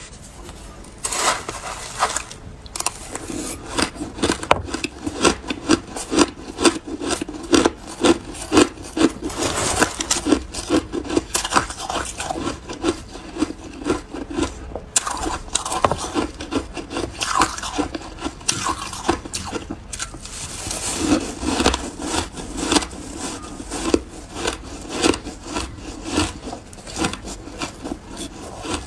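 Shaved ice being scooped from a plastic tub with a metal spoon and crunched between the teeth: dense, rapid crunching and scraping with a couple of brief pauses.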